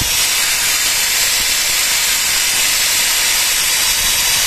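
IBELL 650 W hammer drill running steadily under load, its 6 mm bit boring into wood: a constant high whir and hiss from the motor.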